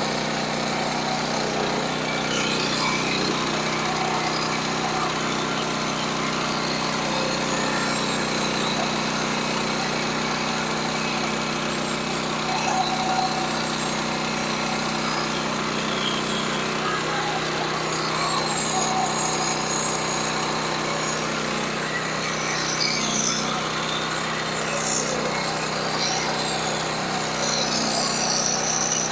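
Engine-driven sawmill running steadily at working speed, a constant motor hum under a dense mechanical rush.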